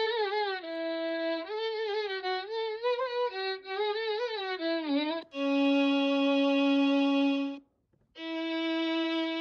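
AI-generated melancholy solo violin piece: a slow bowed melody with vibrato and sliding notes, then long held notes with a short break between them.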